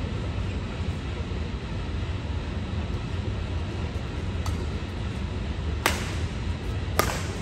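Badminton racket strings striking a shuttlecock in a rally: one faint hit about halfway through, then two sharp, loud hits about a second apart near the end. Under them runs a steady low hum and hiss.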